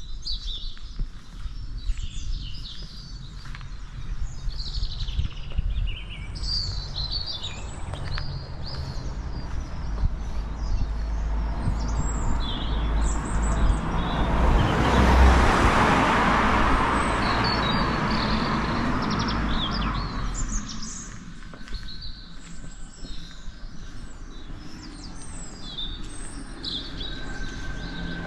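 Small birds chirping again and again. A broad rushing noise swells to its loudest about halfway through, then fades.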